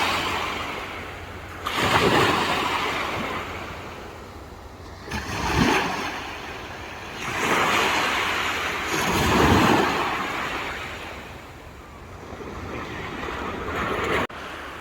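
Sea waves breaking and washing on the shore, in several surges that swell and fade. The sound drops off abruptly near the end.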